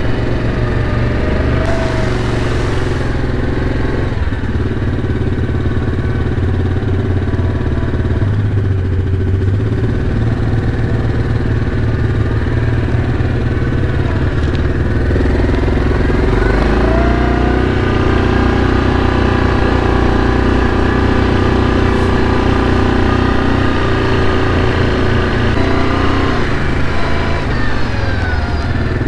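Yamaha Kodiak ATV engine running steadily while riding, its pitch rising twice as it speeds up, once about halfway through and again near the end.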